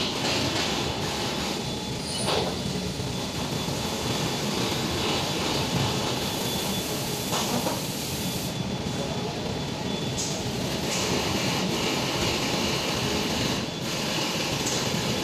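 CNC stone bridge saw running as its cutting head travels along the bridge and tilts: a steady mechanical rumble with a faint high whine.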